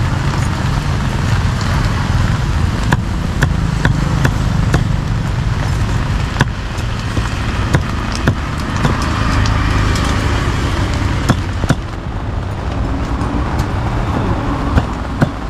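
Cleaver chopping grilled pork on a wooden chopping block: irregular sharp knocks, roughly one a second. Under them runs a steady low traffic rumble.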